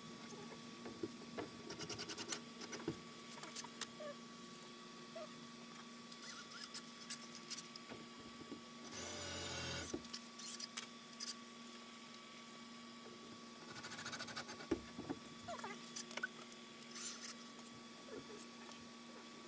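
Scattered small clicks and quick rattles of screws and hardware being handled while a pegboard is fitted to a door, with a brief whir lasting about a second some nine seconds in.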